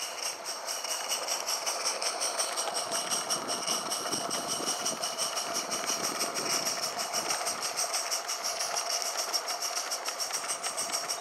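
Accucraft live-steam model of the Lynton and Barnstaple locomotive Lew running under steam, its exhaust beating rapidly and evenly at about five or six beats a second over a steady whir of its motion and wheels on the track.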